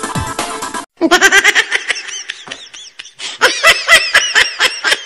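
Electronic music cuts off about a second in. Then comes high-pitched laughter in quick, rhythmic bursts, loudest near the end.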